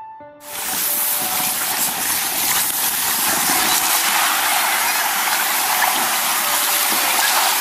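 Loud rushing, gushing water that starts abruptly about half a second in and holds steady, with soft piano music faintly underneath.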